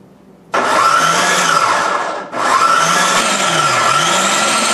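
Small electric food processor running, blending thick cream-cheese waffle batter. It starts about half a second in, stops for a moment a little past two seconds, then starts again and runs on.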